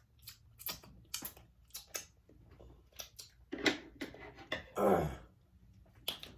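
Scissors cutting through a king crab leg's shell: a run of sharp snips and cracks, about a dozen, at uneven spacing.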